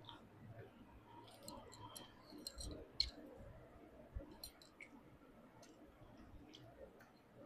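Close-miked eating sounds: scattered small clicks and smacks of chewing and mouth sounds, with the sharpest click about three seconds in.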